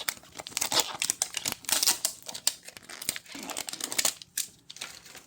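Thin plastic wrapping crinkling and tearing as a tear strip is pulled off a Mini Brands toy capsule ball, a busy run of quick crackles that dies down near the end.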